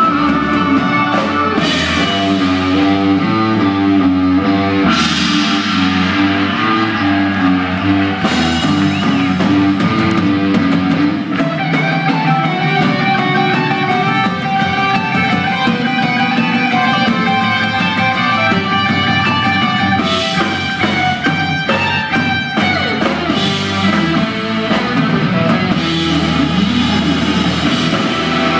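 Live rock band playing: electric guitars over a drum kit, with cymbal crashes now and then.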